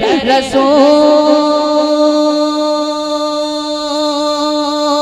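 A man's voice singing a naat with no instruments, through a microphone and sound system. A quick run of ornamented notes in the first second is followed by one long, drawn-out held note.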